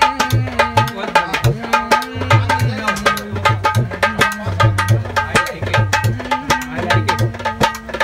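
Dholak, a two-headed barrel drum, played by hand in a fast, steady rhythm: crisp slaps on the small treble head over deep strokes on the bass head.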